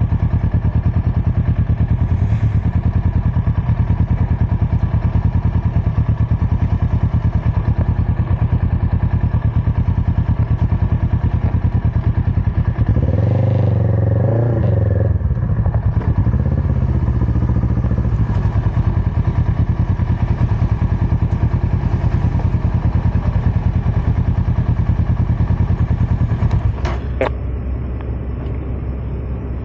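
Sport motorcycle engine idling with a steady, fast pulse. About halfway through the revs rise briefly and fall back as the bike pulls forward. Near the end the sound drops in level and there is a sharp click.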